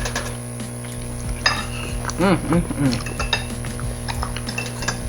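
Cutlery clicking and scraping against plates and dishes during a meal, in scattered sharp clicks. A short wavering pitched sound comes a little past two seconds in.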